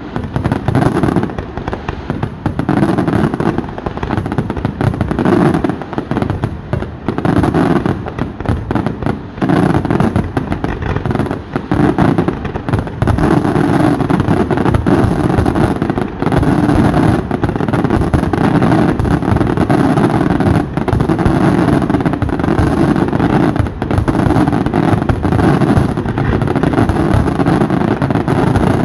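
Dense barrage of aerial firework shells from a Vaccalluzzo display bursting in rapid succession, merging into one continuous rumble of bangs and crackle with no pauses.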